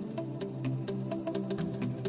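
Background music: sustained chords over a quick, light ticking beat.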